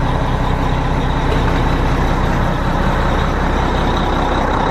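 Diesel engine of a 1991 Mack fire engine running steadily, heard from inside the cab, with an even low-pitched note and no change in speed.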